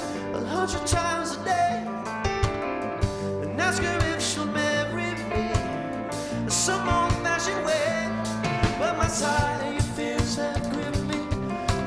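Live band playing a song: sung vocals over electric guitars, keyboard and a drum kit, with a steady beat.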